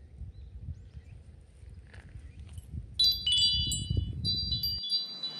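Wind chime ringing: several high metallic tones struck in quick succession from about three seconds in. Underneath is an irregular low wind rumble on the microphone that cuts off abruptly near the end.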